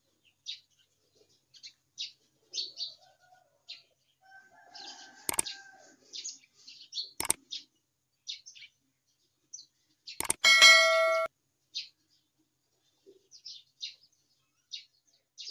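Small birds chirping in short, repeated calls throughout. Two sharp clicks come about five and seven seconds in, and then a loud bell-like ding rings for about a second and cuts off suddenly, the sound effects of a subscribe-button animation.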